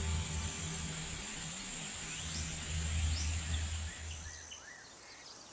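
Steady high-pitched insect drone with a few short rising bird chirps, under the last low notes of background music, which stop about four and a half seconds in as the sound fades.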